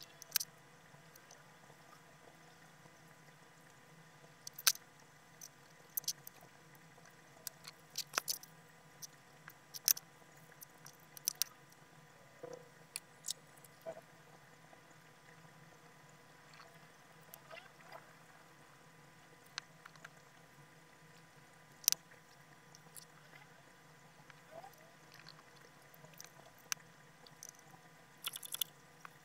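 Sparse, irregular small clicks and taps from a metal coin and cotton swabs being handled by gloved fingers on a wooden tabletop, over a faint steady hum.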